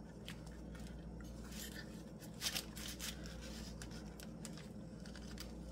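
Faint rustling and small clicks of a thin paper napkin being picked and pulled apart on a small wooden birdhouse, with a slightly louder rustle about two and a half seconds in.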